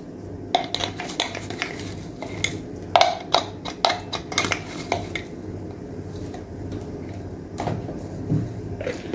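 Scattered light clinks and taps of a tablespoon and spice containers against the seasoning bowl as dry spices are measured out, with a bunch of quick taps in the middle and a few more near the end.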